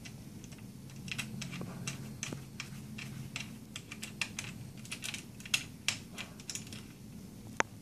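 Irregular light clicks and ticks of small plastic and metal parts being handled as a clamp is fitted onto a handlebar, with one sharper click near the end.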